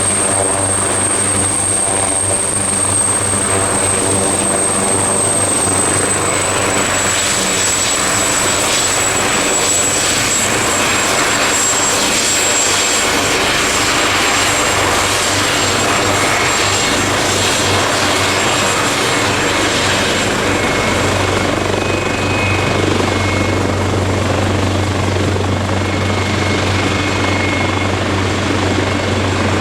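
Leonardo AW139 twin-turboshaft helicopter running close by: steady rotor noise under a high turbine whine, which drops slightly in pitch about seven seconds in. A low hum gets stronger about two-thirds of the way through.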